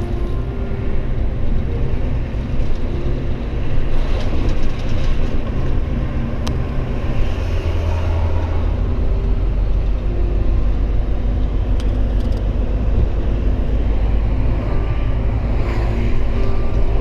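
Diesel truck engine and road noise heard from inside the cab while driving, a steady drone whose low hum grows heavier about halfway through.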